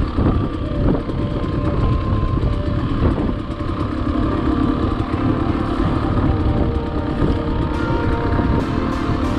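Dirt bike engine running steadily at low throttle as the bike rolls down a loose, rocky trail.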